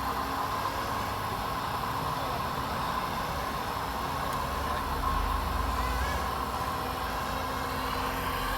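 Radio-controlled scale truck running with a steady engine-like drone, its low rumble swelling about halfway through.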